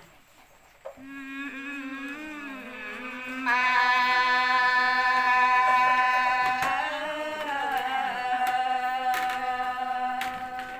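Women singing together, a slow unaccompanied song of long held notes. A voice comes in about a second in, and about three and a half seconds in the singing swells louder and fuller, holding steady notes until it stops at the end.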